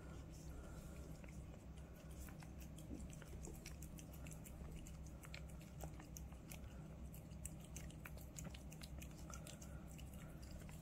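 A cat licking a lickable treat from a squeeze stick pouch held in a hand, making faint, irregular small wet clicks and smacks.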